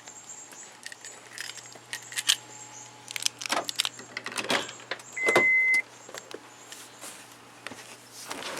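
Car keys jangling and clicking as they are handled, with a single steady high electronic beep lasting just over half a second about five seconds in; the engine is not running.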